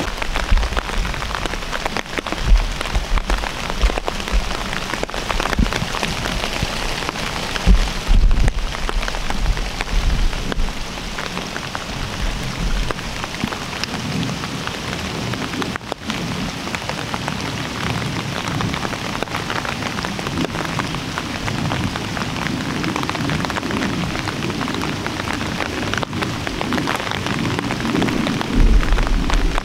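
Steady rain, drops pattering densely on a fabric umbrella overhead. Low rumbles come in near the start, about eight seconds in, and again near the end.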